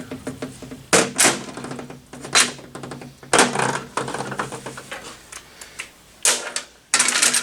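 Cordless impact wrench hammering in several short bursts on the engine's cylinder head bolts. It is not strong enough to break them loose.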